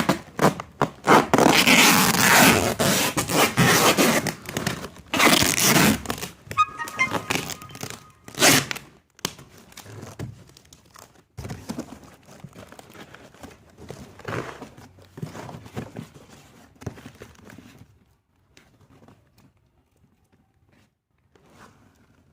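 Cardboard carton being packed and sealed with packing tape: tape ripping off the roll, scraping and thumps on the box. The noise is loud and dense for the first half, then thins out to scattered handling noises and goes nearly quiet near the end.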